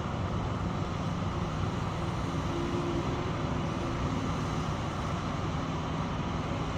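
Heavy construction machinery running steadily at a site: a continuous low engine rumble, with a short higher hum about halfway through.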